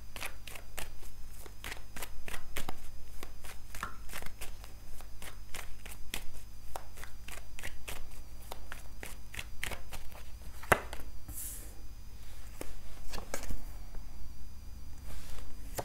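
A deck of tarot cards being shuffled by hand, a quick, uneven run of soft card clicks and slaps, with cards dealt onto the table near the end.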